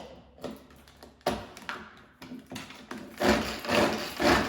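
Tupperware pull-cord chopper cutting carrots: a few separate clicking pulls of the cord and blades, then about three seconds in a quicker, louder run of pulls, the loudest part.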